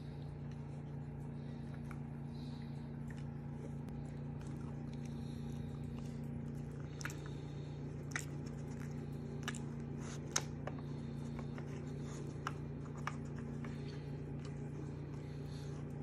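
Scattered sharp plastic clicks and taps, about nine of them through the middle of the stretch, from the hard plastic lids and body of a treat-puzzle toy being knocked and nosed open by a Yorkshire terrier puppy, over a steady low hum.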